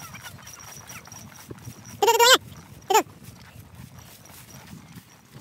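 Two loud animal calls about a second apart: the first longer with a wavering pitch, the second short.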